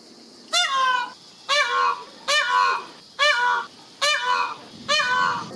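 Peacock calling six times in a quick, even series of loud, honking calls, each about half a second long.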